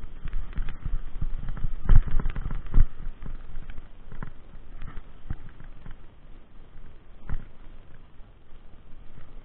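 Mountain bike rattling and thudding as it rides over a rough dirt trail: a dense clatter of knocks over a low rumble, with two heavy thumps about two and three seconds in. It then eases to fewer, lighter knocks as the bike rolls onto grass.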